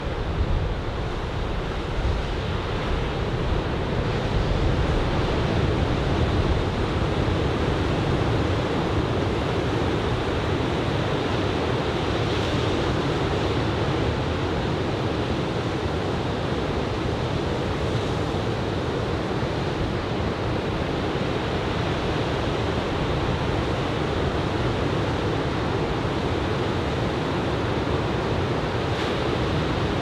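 Ocean surf from a chest-high typhoon swell, breaking and washing in a continuous roar, with some wind rumbling on the microphone.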